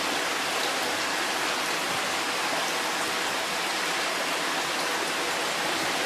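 Water running and splashing steadily into an indoor koi pond, a continuous rushing hiss of moving water.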